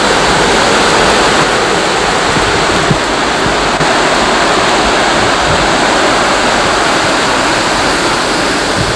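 Floodwater rushing over a submerged road and through whitewater rapids, a loud, steady rush of water.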